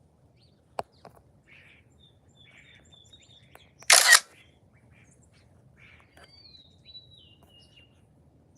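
Wild birds calling faintly: short chirps and a thin whistle that falls in pitch near the end. A sharp click comes about a second in, and a loud, short, harsh burst about four seconds in.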